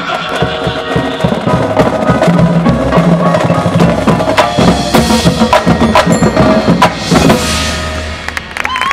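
High school marching band, with brass, drumline and front-ensemble percussion, playing the closing bars of its field show, with cymbal crashes about five and seven seconds in. The music dies away near the end and crowd cheering with a whistle begins as it stops.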